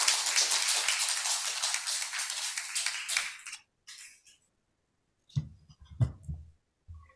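Audience applauding, dying away after about three and a half seconds, followed by a few soft low thumps.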